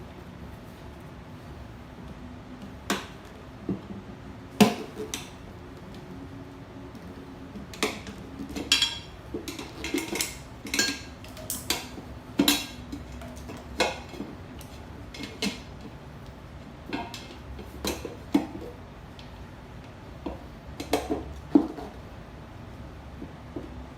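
Metal hand tools clinking and knocking against metal parts while work goes on on a moped wheel and tyre. The clanks are sharp and irregular, some with a brief metallic ring, and they come thickest in the middle of the stretch, over a faint steady low hum.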